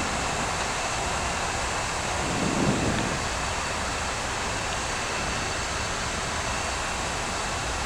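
Steady rushing noise on the flight deck of an Airbus A340-300 on approach: airflow and air-conditioning noise. It swells briefly about two and a half seconds in.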